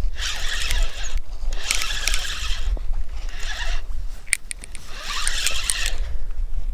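Fishing reel whirring and rasping in bursts of about half a second to a second, five times, while a walleye is played on the line. A steady low rumble runs underneath.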